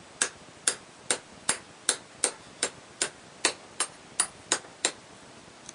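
A hammer tapping in quick succession: about a dozen sharp, evenly spaced knocks, roughly two and a half a second, stopping about five seconds in.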